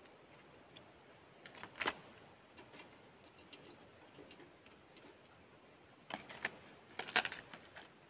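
Light clicks and clatter of handling, in two short bursts, a few seconds apart, from smoked perch being lifted out of a home smoker and packed into a small container.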